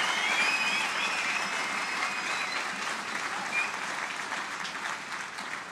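Large outdoor crowd applauding, the clapping slowly fading toward the end.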